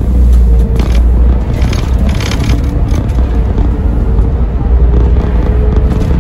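The cab of an Iveco Crossway Line bus on the move: its Iveco Cursor diesel and ZF six-speed automatic running with a heavy, steady low rumble and a faint steady whine. Short clicks and rattles come through about a second in and again around two seconds in.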